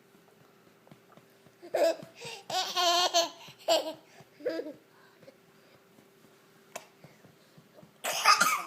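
Baby laughing in short bursts, with wavering, bubbling giggles. After a few quiet seconds comes one more outburst near the end.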